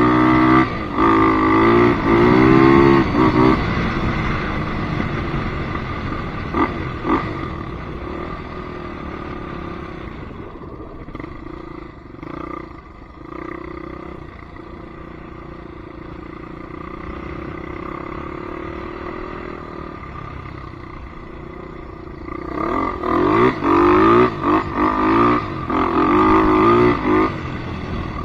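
Polaris Predator 500 ATV's single-cylinder four-stroke engine revving hard, its pitch climbing and dropping with the throttle. It eases to a quieter, steadier run through the middle, then revs hard again near the end.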